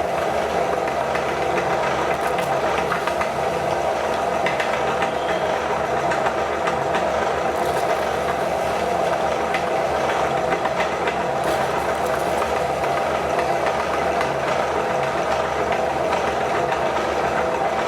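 Electric meat grinder running steadily as hand wash soap is fed through it: a constant motor hum with a light rattle and scattered small clicks.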